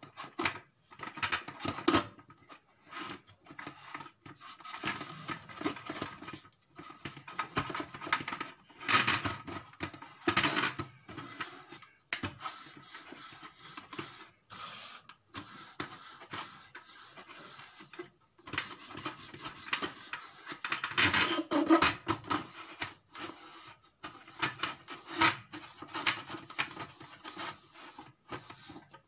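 A cloth rubbing and wiping over the plastic cover and body of an electric juicer in irregular scrubbing strokes, with small knocks and scrapes as the plastic parts are handled.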